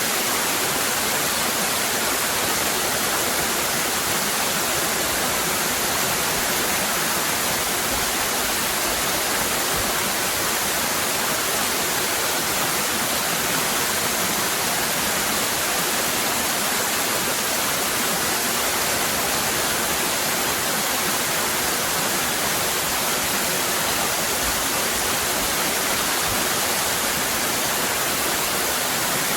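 Cascading waterfall: a steady, unbroken rush of falling water, hissy and even throughout.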